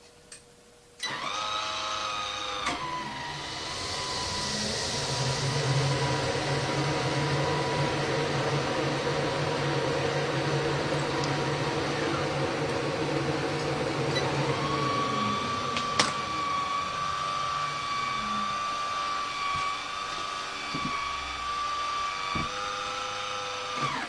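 MaxxAir roof vent fan switched on by remote: its motor starts with a whine, then the fan runs at speed with rushing air. Later the air noise drops to a steady motor whine, with a sharp click partway through, and it cuts off at the end.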